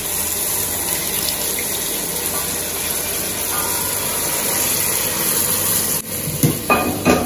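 Coconut milk pouring from a small saucepan into a large aluminium pot of sautéed vegetables: a steady rushing sound that stops about six seconds in. A few short knocks follow near the end.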